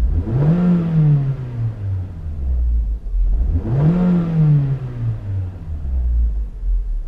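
Toyota 70-series Voxy's 2.0-litre four-cylinder engine free-revved twice in Park. Each rev climbs quickly, to about 4,500 rpm on the second, then sinks slowly back to idle.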